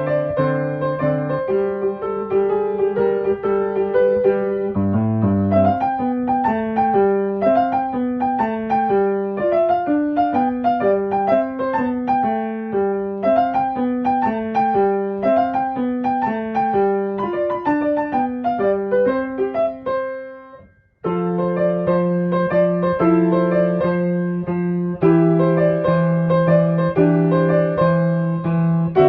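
Background piano music of gently running broken chords. It fades out about two-thirds of the way through and comes straight back in a second later.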